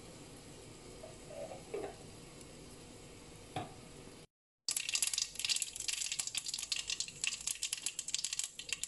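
Mustard seeds popping and spluttering in hot oil in a nonstick wok: a dense, fast crackle. It starts suddenly a little past halfway, after a faint stretch and a moment of dead silence.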